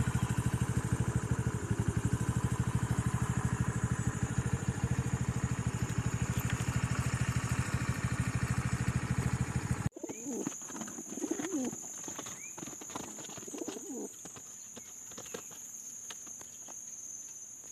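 Motorcycle engine idling steadily, cut off abruptly about ten seconds in. After it, racing pigeons cooing in their carrier against a steady high insect whine.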